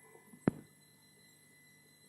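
A single short, sharp knock about half a second in, then a faint steady hum.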